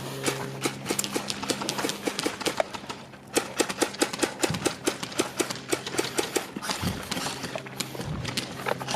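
Airsoft guns firing: a rapid, irregular run of sharp clicks and pops, several a second, thickest in the middle, over a steady low hum.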